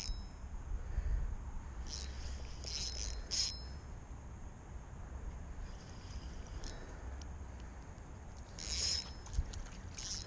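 Spinning reel clicking in short bursts while a hooked fish pulls against the line, in two spells: about two seconds in and again near the end, with a sharp click shortly before the end. A low rumble of wind and handling runs underneath.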